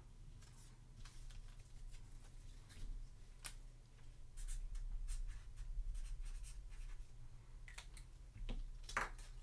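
Faint scratching and small ticks of a pen writing on a paper sticky note, a little louder a few seconds in, over a steady low electrical hum.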